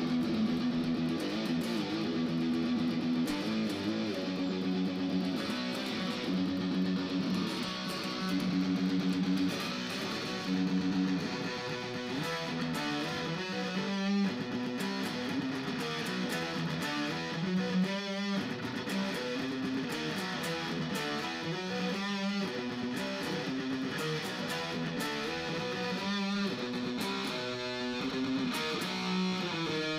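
Metla Explorer-style electric guitar with humbucker pickups, played through a Yerasov combo amp. At first it rings out held chords and notes; from about twelve seconds in it plays a faster rhythmic riff broken by short, abrupt stops.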